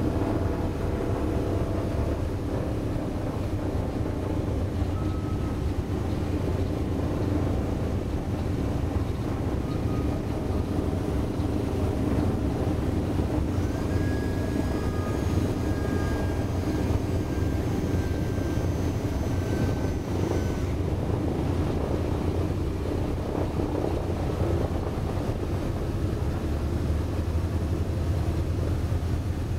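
B-17 Flying Fortress's four Wright R-1820 Cyclone radial engines running steadily at taxi power, heard from inside the bomber's nose as it taxis.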